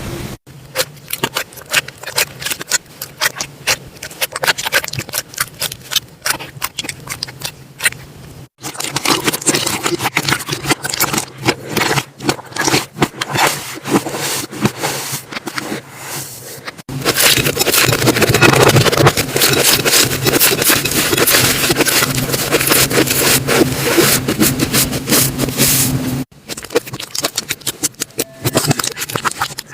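Slime being squeezed, pressed and poked by hand, giving dense crackling, clicking and popping. It comes in separate clips that change abruptly three times, the section from about the middle on being louder and denser.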